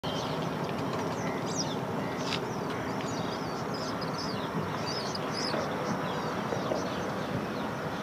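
Many small birds chirping and twittering in short, quick calls, over a steady low rumble of background noise.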